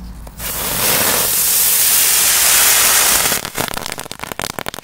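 A ground-spinner firework hissing loudly as it sprays sparks for about three seconds, then breaking into a rapid run of crackling pops. It burns in place instead of spinning.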